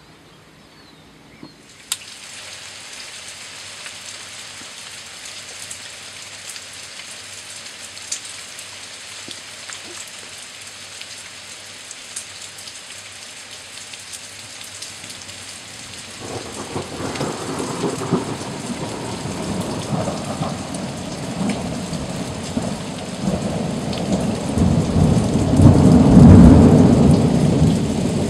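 Thunderstorm: rain falling steadily, with thunder rolling in about halfway through and building to its loudest near the end.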